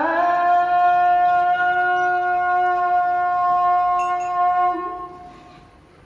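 Adhan, the Islamic call to prayer: the muezzin holds one long drawn-out sung note at the end of the phrase "hayya 'ala al-falah". The note rises slightly at the start, stays steady, and fades out about five seconds in.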